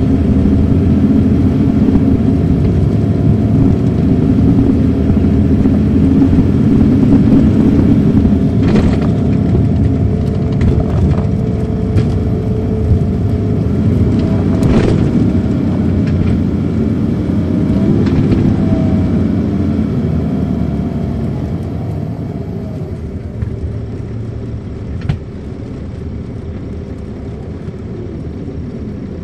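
Caterpillar C13 ACERT diesel of an MCI D4500CL coach, heard from inside the coach as it drives, its pitch rising and falling. Several sharp knocks or rattles come through, and over the last several seconds the engine eases off and gets quieter.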